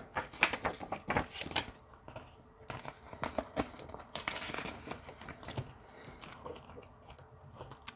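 Paper banknotes rustling and a clear plastic binder envelope crinkling as cash is handled and slipped inside, with irregular light clicks and taps.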